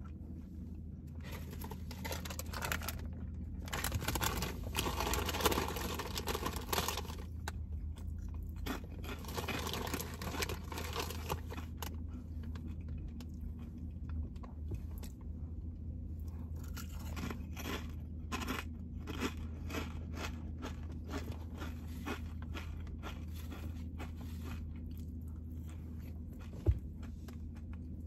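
Close-up chewing and biting of a Philly cheesesteak sandwich, with wet mouth clicks throughout, loudest from about four to seven seconds in and again around ten seconds. A steady low hum lies underneath, and there is one sharp knock near the end.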